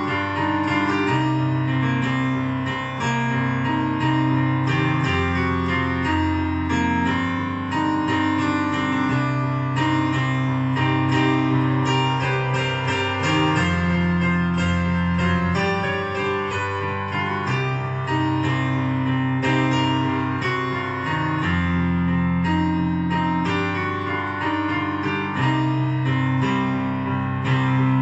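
Portable electronic keyboard being played: a piano-like melody with many quick notes over held bass notes that change every couple of seconds, with a guitar-like accompaniment voice.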